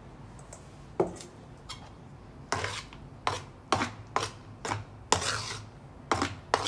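A spoon scraping and stirring through thick flour batter in a bowl, in short repeated strokes about two a second, after a single knock about a second in. This is plain flour being mixed into the palmyra-pulp batter.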